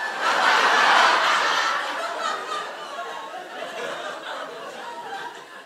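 Audience laughing, loudest at first and then gradually dying away.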